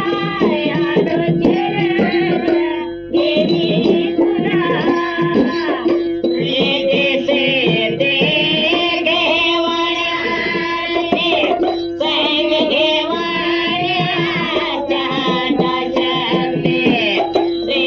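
Indian devotional folk music: singing with instrumental accompaniment over a steady drone note, breaking briefly a few seconds in and again about two-thirds through.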